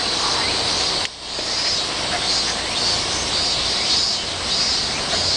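Chorus of cicadas buzzing steadily in high summer, swelling and fading in slow pulses, with a brief dip about a second in.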